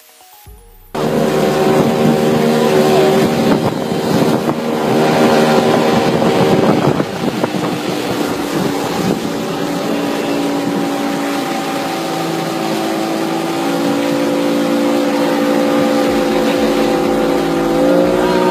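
Motorboat engine running at speed, a steady drone, mixed with wind buffeting the phone's microphone and rushing water. It cuts in abruptly about a second in.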